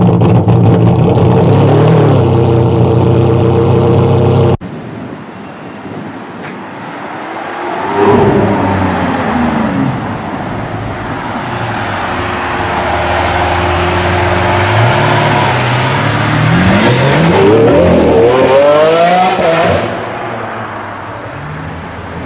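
High-performance car engines: a loud steady engine note that cuts off suddenly, then a car accelerating, its engine pitch rising again and again through gear changes.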